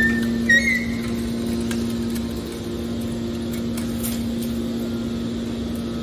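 Hydraulic scrap-metal baler's power unit running steadily with a constant low electric-motor and pump hum, the rams at rest. A few brief high squeaks and a short knock come in the first second.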